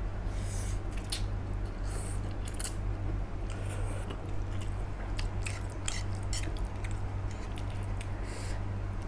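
A person chewing and slurping instant noodles close to the microphone, with many short wet mouth clicks and smacks and a few brief slurps, over a steady low hum.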